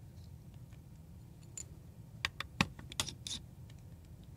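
Light, sharp clicks and taps of small tools against the parts of a partly disassembled mirrorless camera body. They come in a quick irregular cluster in the middle, with a few fainter ticks around it.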